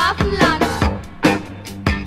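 Recorded 1982 German pop song playing, with drums, bass and other instruments. The music drops back for a moment about halfway through, and a drum hit brings it up again near the end.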